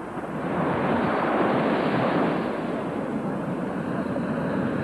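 Ocean surf rushing and washing onto the shore, a steady noise that swells about half a second in.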